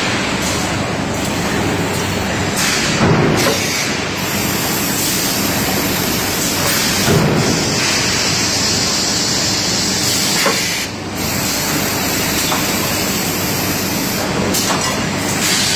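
Loud, steady machinery noise of a cookware production line: a continuous hiss over a low hum, the hiss swelling and easing off a few times.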